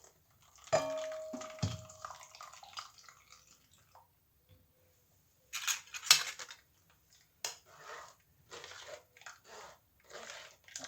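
Kitchen utensils at work straining blended orange-and-lemon juice through a sieve: a ringing metal clink about a second in and a knock just after, then a run of short scraping, rustling strokes.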